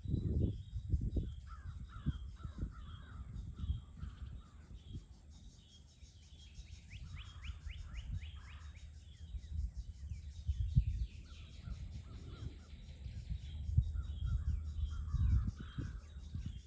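Wild birds calling and singing, with a run of quick repeated notes about halfway through. Uneven low rumbling bursts on the microphone and a steady high-pitched tone sit underneath.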